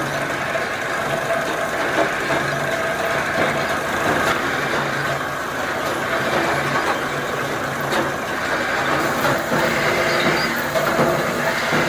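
Factory production machinery running steadily, a dense mechanical hum with several held tones and faint scattered clicks.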